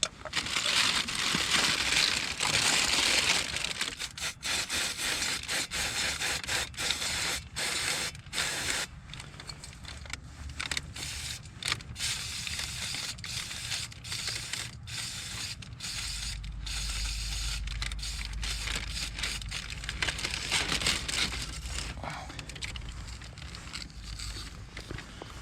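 Aerosol brake cleaner sprayed onto a dirty Bosch blower fan motor, a steady hiss for about four seconds. After that come scattered clicks and scrapes of the motor parts being handled and cleaned.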